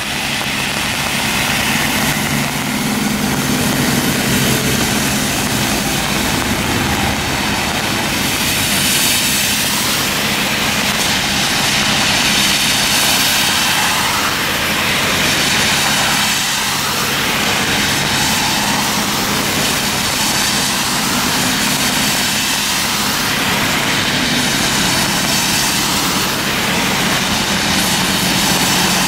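Diesel city buses and other traffic on a rain-soaked road: a steady engine hum under the hiss of tyres through standing water, the hiss swelling several times as vehicles pass.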